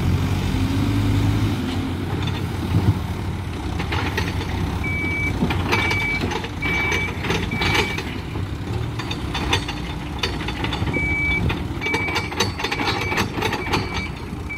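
Heavy diesel machinery running steadily, with a reversing alarm beeping in two runs of evenly spaced beeps, the first starting about five seconds in and the second near the end, and scattered sharp clanks and knocks during the beeping.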